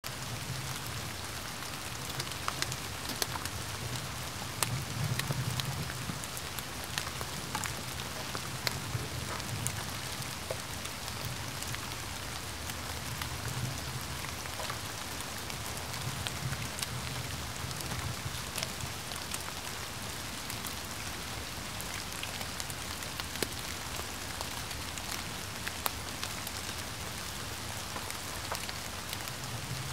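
Gentle rain falling steadily: a continuous even hiss with many scattered, sharper drop taps. A soft low rumble runs underneath and swells at times.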